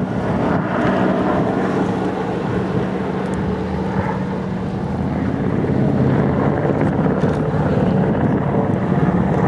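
Steady low engine drone mixed with wind buffeting the microphone.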